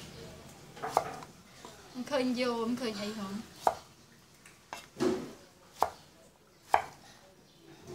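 Kitchen knife cutting bottle gourd on a wooden chopping board: about six sharp single knocks as the blade strikes the board, roughly a second apart, most of them in the second half.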